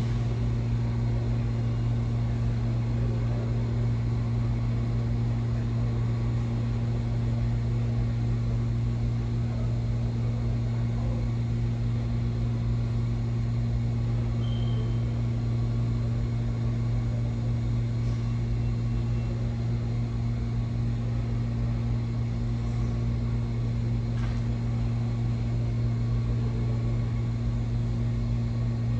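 Steady low drone of subway station machinery, a deep constant hum with an even rumble beneath it that does not change.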